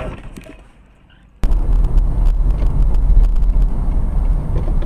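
In-cabin engine and road rumble of a moving car, picked up by a dashcam. It cuts in abruptly about a second and a half in, after a short fade to quiet. A faint steady high whine runs over it.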